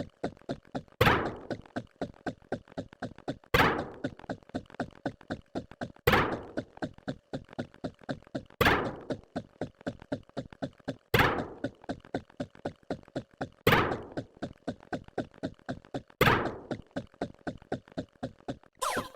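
A repeating pattern of knocks: a heavy thunk about every two and a half seconds, with light quick clicks, about four a second, in between.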